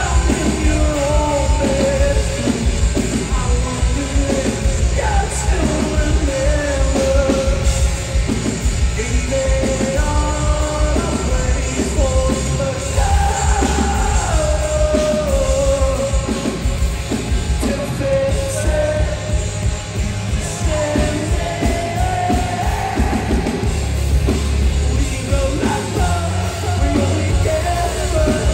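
Live pop-punk band playing loud: a male singer singing and yelling over distorted electric guitars, bass and a drum kit.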